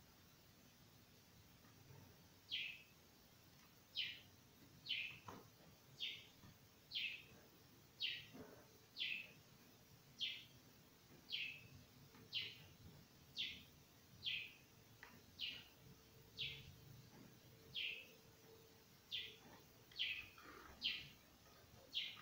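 A bird repeating one short, falling chirp about once a second, faint against a quiet background.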